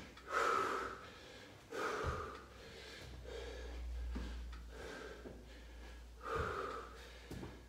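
A man breathing hard from exertion, with short, forceful breaths about a third of a second in, at about two seconds and at about six and a half seconds. A low rumble runs between about three and five seconds.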